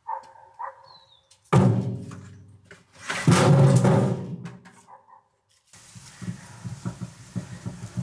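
Split firewood logs thrown into a steel wheelbarrow: two loud clanging thunks that ring on after each hit. Then, from about halfway, a rapid rattle of the loaded wheelbarrow being pushed, its wheel rolling over the paving.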